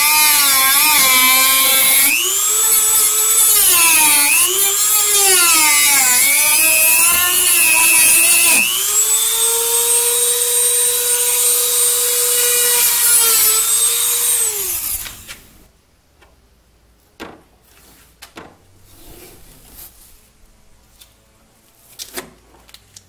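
Dremel rotary tool with a cutting disc cutting through a plastic fender flare: a high whine that repeatedly sags and recovers in pitch as the disc bogs in the cut, then runs steadier and higher before winding down and stopping about fifteen seconds in. Faint clicks and handling noises follow.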